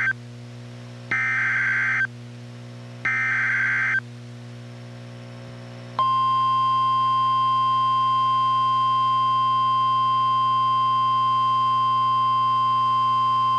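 NOAA Weather Radio alert start from a Reecom R-1630 weather radio: the end of one SAME digital header burst, then two more raspy one-second data bursts a second apart. About six seconds in, the steady 1050 Hz NWR warning alarm tone begins and holds. A low hum runs underneath.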